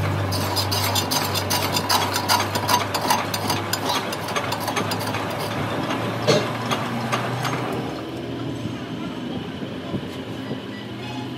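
Portable boring machine turning a boring bar in the bearing bore of a differential gearbox housing. The cutter scrapes the metal with rapid clicking over a steady motor hum, easing off and going quieter after about eight seconds.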